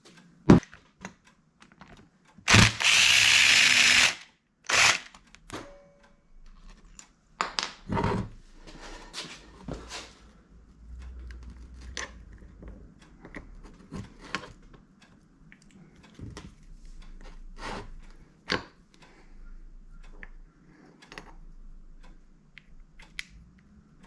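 Hand work on a motorcycle engine during teardown: metal parts clicking and knocking as they are handled, with one loud burst of hiss lasting about a second and a half about three seconds in.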